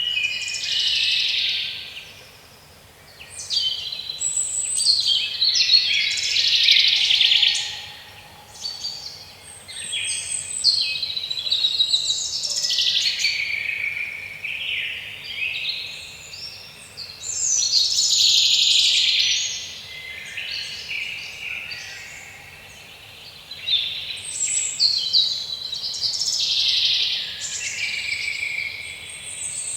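Small birds chirping and singing in bursts of quick high calls, with brief lulls between phrases.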